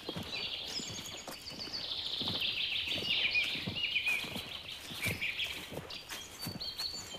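Songbirds singing in a forest, a dense mix of chirps and trills, loudest in the middle. Under them come footsteps on the forest floor at a steady walking pace.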